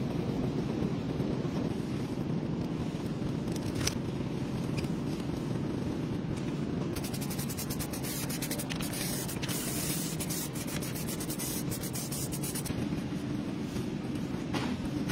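Aerosol spray can spraying with a loud hiss for about six seconds, starting about seven seconds in, over a steady low background hum.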